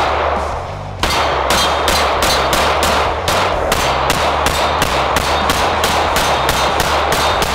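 Springfield Armory Echelon striker-fired pistol fired rapidly, a fast run of shots at about four a second starting about a second in.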